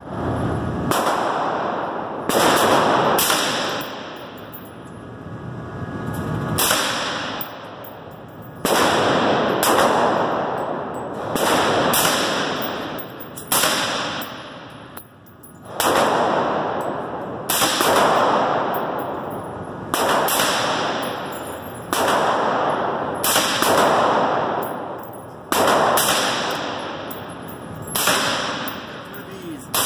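Suppressed AR-style rifle fired in slow single shots, about eighteen of them, roughly one every one to two seconds, each a sharp crack followed by a long echoing tail in the indoor range.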